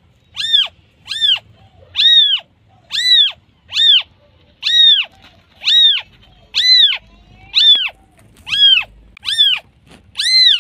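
Newborn kitten mewing for its mother: a steady string of short, high-pitched mews, each rising and then falling in pitch, about one every three quarters of a second.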